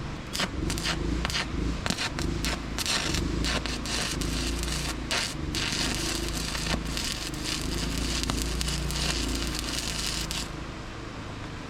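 Stick (arc) welding with a 3/32 rod, the welder's heat turned up to melt off a lump of weld ("hot rodding"). Several short crackling strikes, then a steady crackle that stops suddenly near the end.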